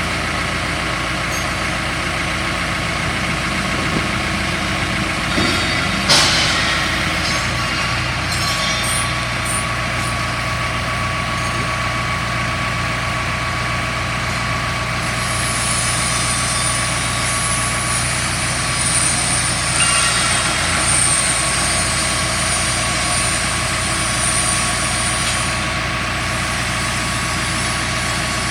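Hydraulic drill rig running steadily, its engine and hydraulics keeping up a constant machine hum. A brief clank about six seconds in, and a high thin whine that comes in about halfway and fades out near the end.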